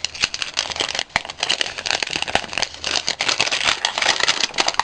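Wrapping crinkling and rustling continuously as a small wrapped packet is opened by hand.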